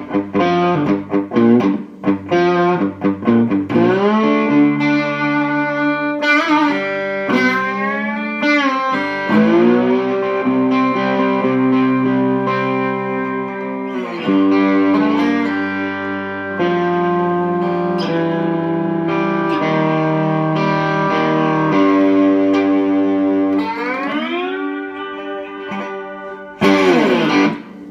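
Birdwood Lightning Boy cigar box guitar being played: picked notes and held chords with several gliding slides in pitch. A loud final chord comes near the end.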